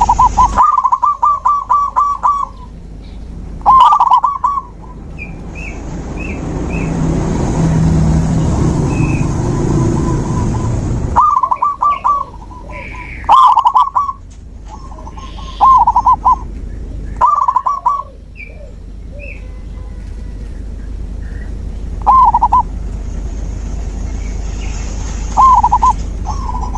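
Zebra dove (perkutut) cooing: about eight phrases of quick repeated notes with pauses between them, and faint higher chirps of other birds. A rushing noise swells from about five seconds in and cuts off suddenly near eleven seconds.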